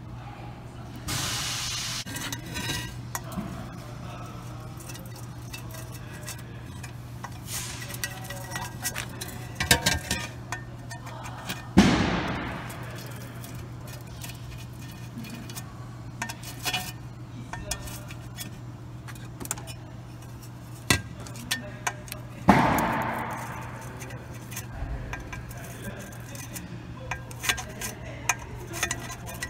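Small taps and clicks of a brush dabbing rubberized coating onto a metal differential cover, with two loud metallic clangs that ring out and die away over about a second, one near the middle and one about ten seconds later.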